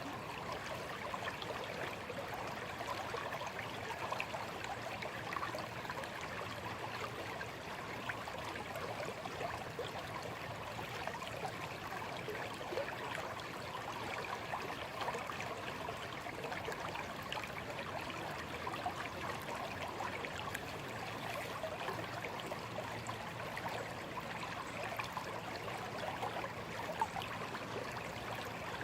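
A small stream flowing steadily, water babbling and trickling over stones in an even, unbroken rush.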